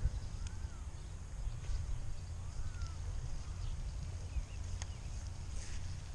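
Wind buffeting the microphone as a steady low rumble, with a few faint bird chirps and two sharp ticks, one near the start and one near the end.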